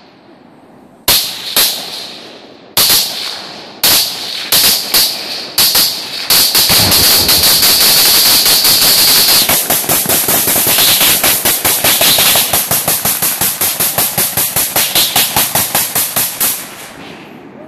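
Rifle gunfire at a tannerite-packed television target: several single shots a second or so apart, then about six seconds in a long run of rapid shots that goes on for about ten seconds and tails off near the end. The tannerite detonates among the shots in the first eight seconds.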